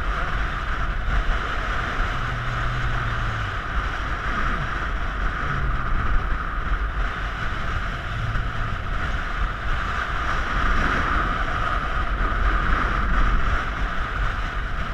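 Wind blowing across the microphone: a steady rushing noise with a deep rumble that swells and eases a little, with no break.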